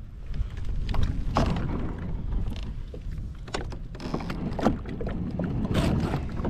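Irregular hollow knocks, clunks and scrapes from a plastic sit-on-top fishing kayak as a person settles into its seat and pushes off from a sandy bank onto the water.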